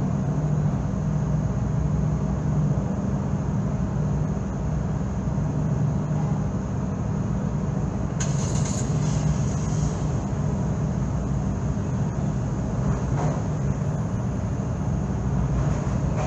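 Steady low engine drone heard from inside a car on a car ferry's vehicle deck, with a brief hiss about halfway through.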